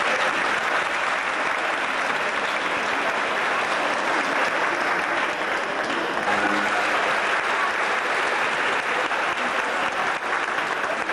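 Audience applauding: steady, sustained clapping from many people.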